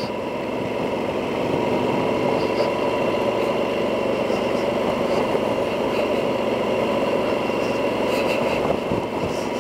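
Yamaha XT1200Z Super Tenere's parallel-twin engine running steadily at road speed, heard through a mic inside the rider's helmet. It grows a little louder over the first second or two, then holds steady.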